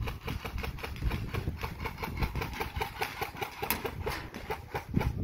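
Airsoft gun firing in a long, steady burst, a rapid rattle of several shots a second.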